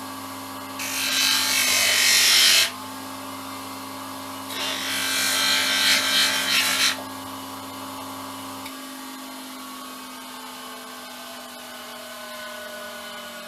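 An electric power tool running at a steady speed, twice pressed into an old mobile phone's screen with loud grinding, about a second in and again around five seconds in. Between and after the grinding only the motor's steady hum is heard.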